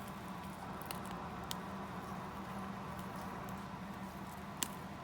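Light handling noise from small glitter jars: faint scratching and two sharp clicks, about a second and a half in and near the end, over a steady low hum.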